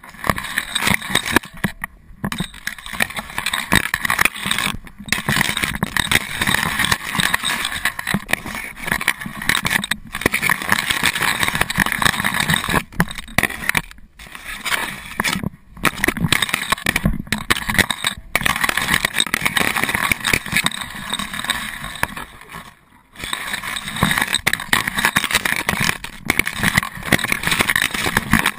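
Tall grass brushing and scraping against a camera mounted on a moving dog's harness: a dense, irregular rustling broken by several brief dropouts.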